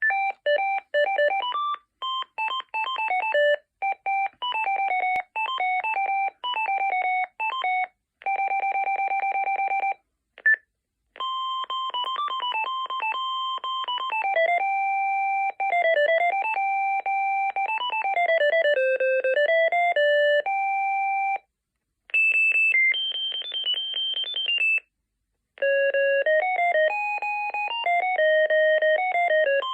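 Telular Phonecell SX5D fixed wireless desk phone playing its preloaded ringtones one after another: electronic beeping melodies, one note at a time, with short pauses between tunes.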